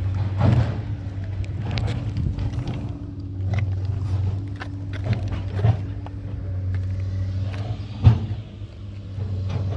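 Engine of heavy machinery running steadily with a low hum, with several short sharp knocks over it, the loudest about eight seconds in.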